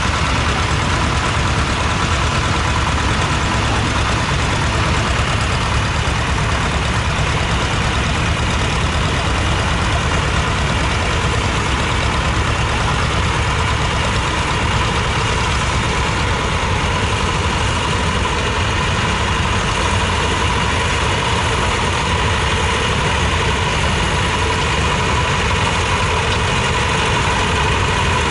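Small diesel tractor engine running steadily at an even speed while pulling a plough.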